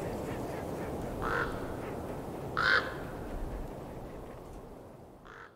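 A bird calling a few times in short calls over a steady low rushing background, all fading out near the end.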